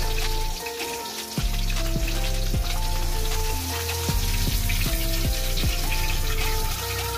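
Fish frying in hot oil in a pan: a steady sizzle, under background music with a steady beat and a simple melody.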